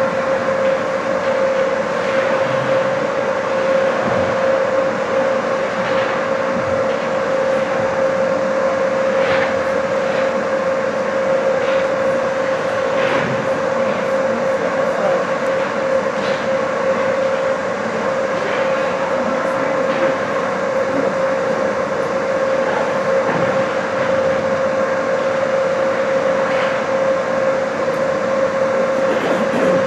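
A steady mechanical hum with a constant tone, the ice rink's building machinery, under scattered clacks of hockey sticks and puck and scraping skates from play on the ice.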